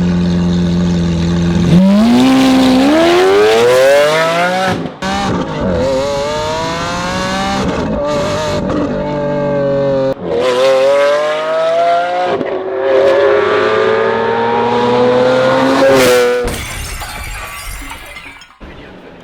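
Lamborghini Aventador S 6.5-litre V12 through a straight-through Capristo exhaust with its valves open, accelerating hard: after a steady note the revs climb again and again, each climb broken by a brief drop in pitch at an upshift of the single-clutch gearbox. A sharp crack near the end as the throttle lifts, then the engine note fades.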